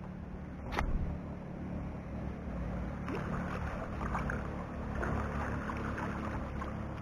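Wind rumbling on the microphone over the wash of the sea on a stony shore, with a sharp click about a second in and a crackling rustle from about three seconds in.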